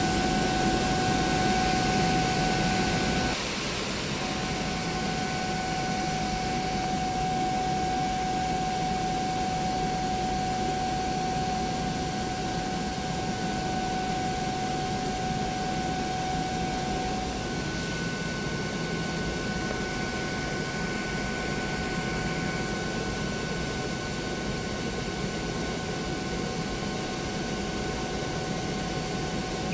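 Industrial air compressor running: a steady mechanical rushing noise with a steady whine over it. About three seconds in, the sound drops slightly in level and then carries on steadily.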